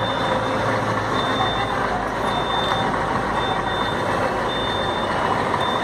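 Double-decker tour coach running as it pulls away at low speed, with a high-pitched warning beep sounding about once a second over the engine.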